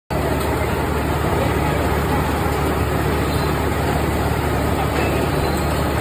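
Potato washing machine with soft-bristle brush rollers running: a steady motor hum under an even wash of noise from the spray water and the potatoes tumbling on the brushes.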